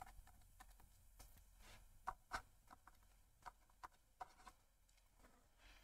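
Faint, scattered taps and ticks of a stylus writing on a tablet screen, irregular and a few to a second, the clearest about two seconds in.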